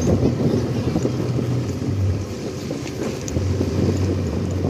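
Small motorcycle engine running steadily while riding, with wind rushing over the microphone.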